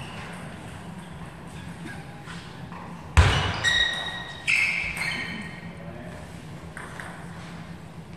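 A sharp thud about three seconds in, followed by two ringing pings of a table tennis ball bouncing on the hard floor, over the low steady hum of the hall.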